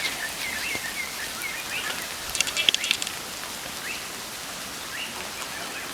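Outdoor ambience: a steady hiss with faint short bird chirps scattered through, and a brief run of crackling rustles about two and a half seconds in.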